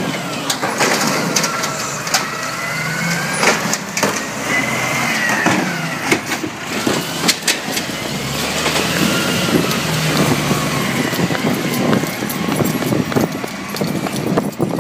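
Automated side-loader garbage truck working its lift arm: a whine that rises and falls as the arm lifts and shakes a cart, with repeated knocks and bangs of the cart being emptied, over the running diesel engine. About eight seconds in, a deeper engine rumble comes in as the truck pulls away.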